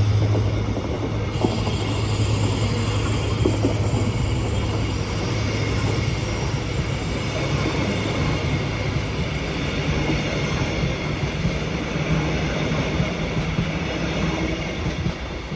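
Caledonian Sleeper coaches rolling past behind a Class 66 diesel locomotive: steady wheel-on-rail noise with high-pitched wheel squeal. The locomotive's deep engine drone drops away about a second in, and the train noise slowly eases toward the end.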